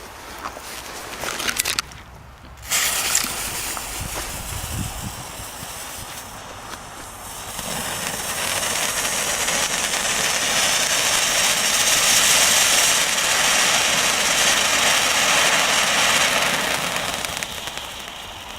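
Gold fountain firework spraying sparks with a steady rushing hiss. It starts suddenly after a few crackles, grows louder and fuller about eight seconds in, then tapers off near the end.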